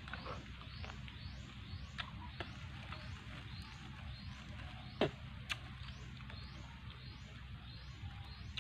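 A few sharp clicks of snail shells being handled and cracked while eating, the loudest about five seconds in. Behind them a high chirp repeats steadily about twice a second.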